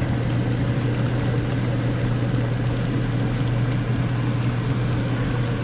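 Steady low hum over a continuous hiss, with a few faint ticks now and then.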